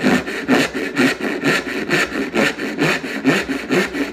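Dovetail saw, freshly filed rip and set, cutting a kerf into a wooden board in steady rasping strokes, about two a second.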